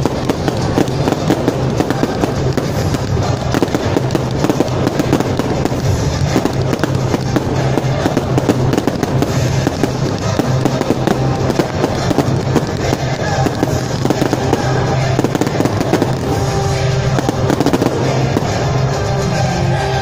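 Fireworks going off in a rapid, continuous barrage of bursts and crackling from aerial shells, with music playing underneath.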